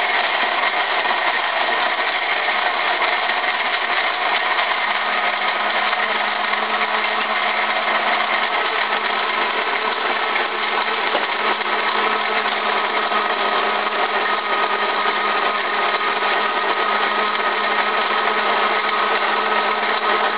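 Countertop blender running steadily at full speed, churning ice with juice and cream of coconut into a frothy frozen drink.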